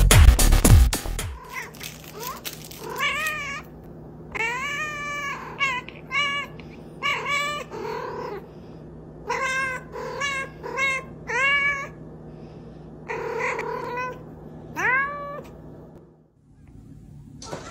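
A tabby cat meowing over and over, a dozen or so short meows that rise and fall in pitch, some coming in quick pairs. Before the first meow, about a second of loud electronic music cuts off.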